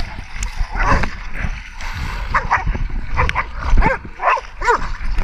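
Hog-hunting dogs barking and yelping in short, quick calls, most of them in the second half, over the low rumble of splashing through shallow swamp water.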